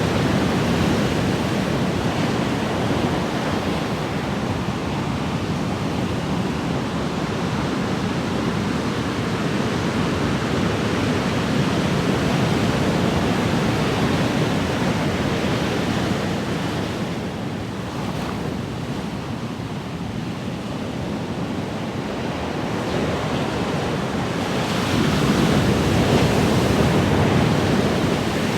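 Ocean waves washing on a shore in a continuous surf wash, easing off about two-thirds of the way through and then swelling into a louder, brighter breaking wave near the end.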